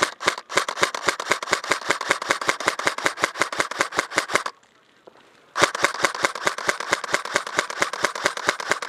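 Airsoft gun firing on full auto in two long bursts of about eight shots a second, with a pause of about a second between them.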